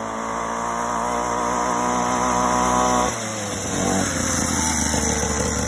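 SYX Moto mini kids' dirt bike's small two-stroke engine running at high revs, getting louder as the bike comes closer. About three seconds in the engine note drops suddenly and it carries on running at lower revs.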